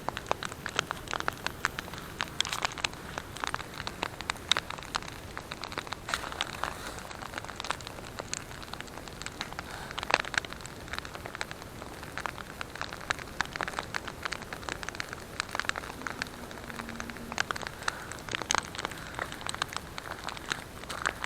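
Wood campfire crackling, with irregular sharp pops and snaps over a soft hiss.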